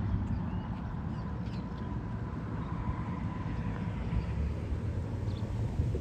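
Steady low rumble of distant road traffic, with a few short faint bird chirps above it.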